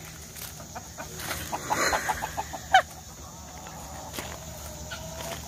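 Chickens clucking, with a quick run of short clucks about two seconds in and a single sharp falling call a little later.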